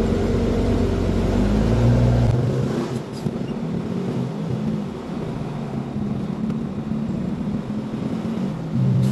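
Mercedes-Benz truck's diesel engine running, heard from inside the cab as the truck is driven at low speed. It is louder and deeper for about the first two seconds, then the revs ease off, with a short click about three seconds in.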